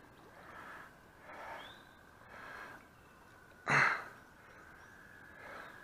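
A man's breathing: soft breaths about a second apart, then one short, loud breath nearly four seconds in.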